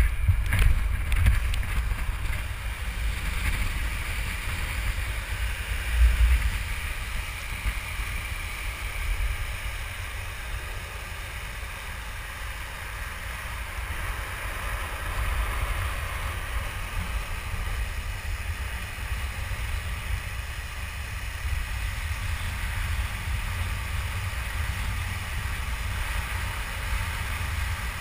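Wind buffeting a pole-mounted camera's microphone during a fast longboard run downhill, over the steady roar of longboard wheels rolling on asphalt. Gusty at first, with one louder low bump about six seconds in.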